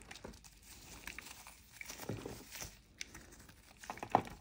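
Snap-off utility knife blade scraping and shaving a lump of dry edible clay: a run of short, dry, crunchy scrapes with crumbs coming away, and a sharper crack just before the end. The clay is clean, with no grains of sand under the knife.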